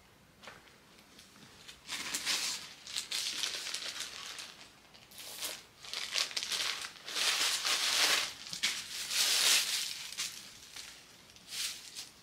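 Clear plastic clothing bag crinkling in irregular bursts as it is opened and a garment is pulled out of it, starting about two seconds in.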